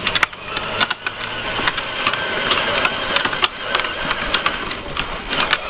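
Battery-powered Barbie Jeep ride-on toy driving on pavement: its small electric gear motors whirring steadily while the hard plastic wheels rumble and click over the grit.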